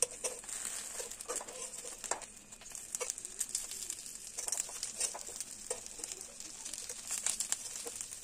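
Banana-leaf parcels of hilsa fish frying in a little refined oil in a pan: a steady high sizzle with irregular crackles and light clicks as the parcels are turned with metal tongs.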